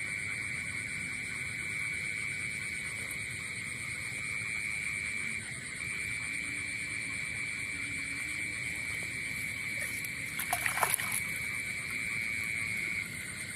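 Steady night chorus of frogs calling over a rain-flooded grassy field. About ten and a half seconds in, a brief burst of splashing as hands grab through the shallow water.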